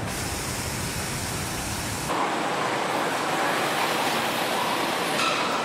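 Steady machinery noise of a car-body assembly hall where industrial robot arms are working. The noise changes abruptly about two seconds in, and there is a brief higher hiss near the end.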